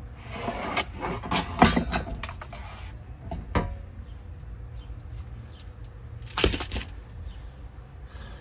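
Handling noises: about two and a half seconds of rustling and scraping with sharp clacks, a single click a little later, and another short rustle about six seconds in, over a steady low hum.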